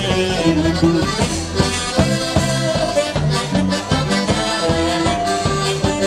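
Polish folk band playing an instrumental passage with no singing: accordion melody over a steady bass line and beat.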